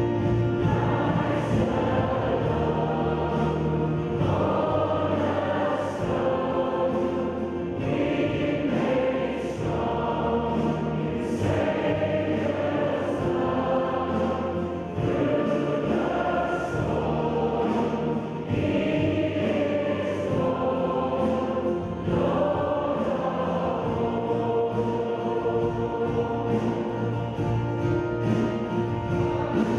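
A choir of young voices singing over a steady, sustained low accompaniment.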